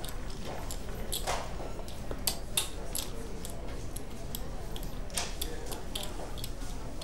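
Casino ambience: gaming chips clicking and clattering in short, irregular bursts over a low background murmur.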